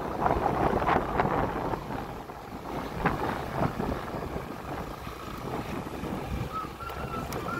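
Wind rushing over the microphone of a motorcycle-mounted camera while riding, with the motorcycle's engine running underneath. A faint high whistle comes in near the end.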